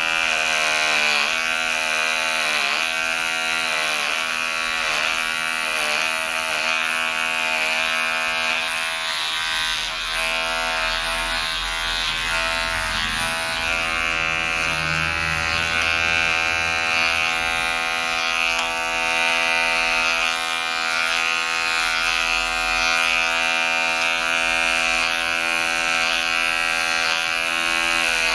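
Electric hair clippers buzzing steadily while cutting short hair. In the first third the buzz dips in pitch with each stroke, about every two-thirds of a second, then runs evenly.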